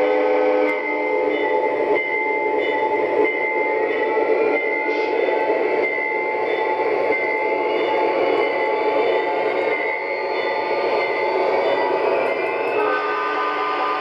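O-scale model diesel locomotive's onboard sound system playing diesel engine sounds as the train rolls past on three-rail track. It is a continuous steady tone that changes pitch a couple of times.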